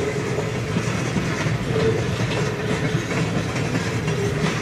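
Freight train tank cars rolling past with a steady rumble and wheels clicking over the rail joints, and a faint tone that comes and goes.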